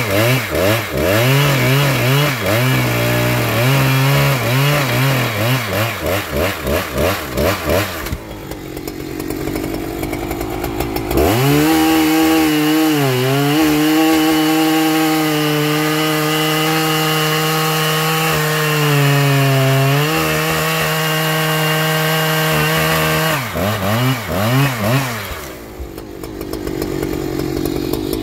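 Husqvarna 3120XP chainsaw, a large two-stroke, cutting through a big log at full throttle, its engine note wavering as it bogs under load. About eight seconds in it drops to idle for a few seconds, then revs back up and cuts steadily with brief dips. Near the end it wavers once more and settles back to idle as the cut finishes.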